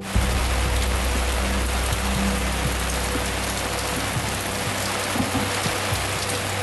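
Steady rain falling, an even hiss that begins suddenly and holds without letup.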